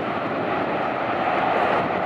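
An ATR 72-600 turboprop airliner's twin engines and propellers running steadily at low power as it rolls and turns on the runway after landing, a constant rushing drone.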